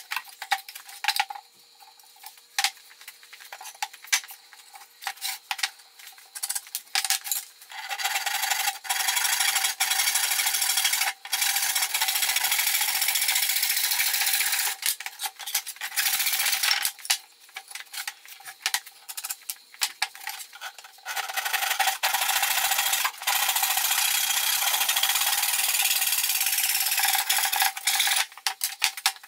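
Handsaw crosscutting a softwood 2x4: rasping back-and-forth strokes of the blade through the wood, short and broken at first, then fast continuous sawing with brief pauses.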